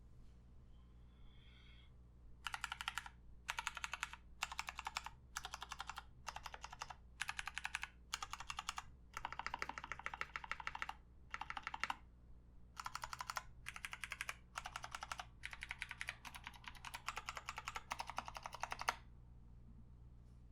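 Typing on a custom mechanical keyboard with 68g Ergo Clear tactile switches, an acrylic plate and case, and PBT keycaps: short bursts of rapid keystrokes broken by brief pauses, starting about two seconds in and stopping shortly before the end.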